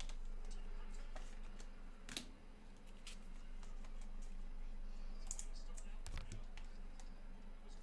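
Scattered light clicks and taps, about a dozen at irregular intervals, over a steady low electrical hum.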